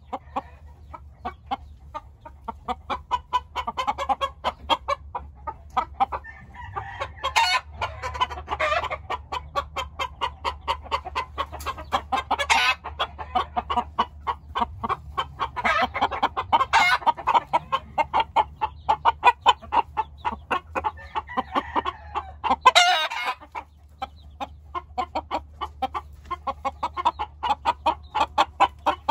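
Many chickens clucking in a dense stream of short, rapid calls, with roosters crowing loudly now and then over it.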